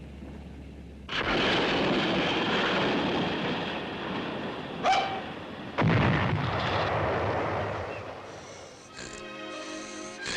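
Cartoon sound effect of rocks tumbling in a rockslide: a long rumbling crash about a second in, a short sharp hit near five seconds, and a second long crash about six seconds in. Music comes in near the end.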